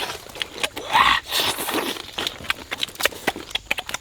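Many quick, irregular clicks and taps, with a short louder burst about a second in.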